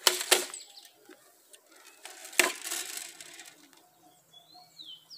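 Hand-held jab planter being thrust into the soil and worked: two sharp clacks at the start and a heavier crunching strike about two and a half seconds in, with smaller knocks after it. A bird chirps in short gliding notes near the end.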